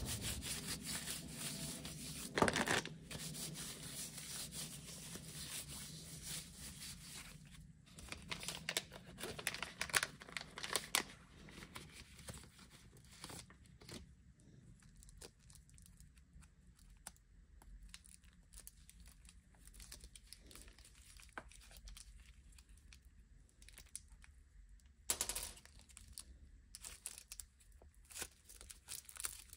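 Plastic wrapping crinkling and tearing as a syringe is unwrapped from its sealed sterile pack by gloved hands, then handled. The rustling comes in irregular spells with quieter gaps, louder a couple of seconds in, around eight to eleven seconds in, and again near the end.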